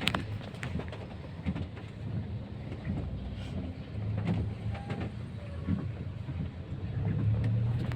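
A vehicle running, heard as a steady low rumble, with a few light knocks.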